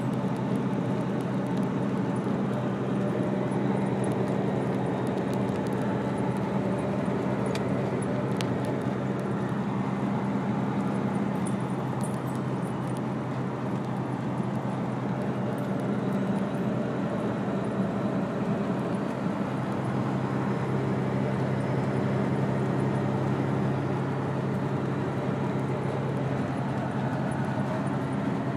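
Steady low drone of a vehicle engine running at an even speed, with no change in level.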